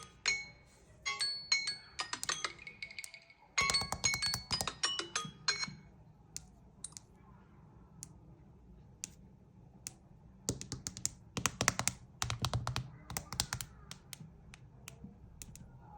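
Quick runs of clicks and taps on smartphones, mixed with short high electronic tones during the first five or six seconds. Then single clicks come a second or so apart, and another dense run of clicking follows later.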